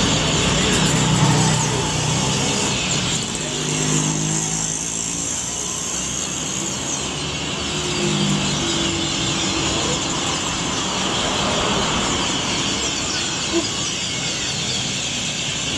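Dense, continuous chattering of a large flock of negrito birds gathering to roost in the evening, over street traffic: a vehicle engine passes in the first few seconds and again about eight seconds in.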